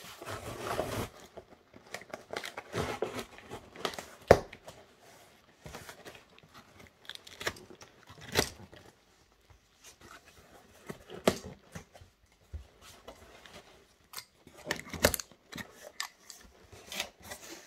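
A box cutter slitting packing tape on a cardboard box and the flaps being pulled open: irregular scrapes, rips and crinkles of tape and cardboard, with several sharp clicks.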